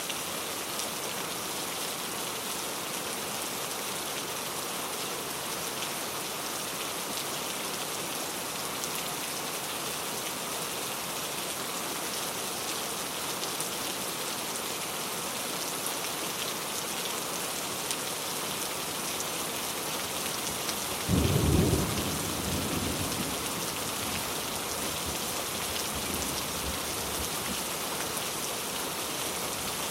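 Heavy rain falling steadily. About two-thirds of the way through, a sudden loud clap of thunder rumbles away over several seconds.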